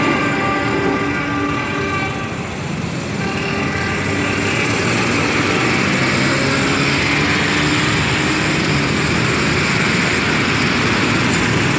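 Passenger train running on the rails: a chord of several steady tones for the first couple of seconds, then a continuous rumble of the train on the track.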